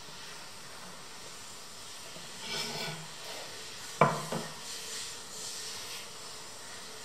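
A plywood chair slat scraped across a wooden floor, then set down with one sharp wooden knock about four seconds in and a lighter knock just after, followed by soft scuffing as it is pushed into place.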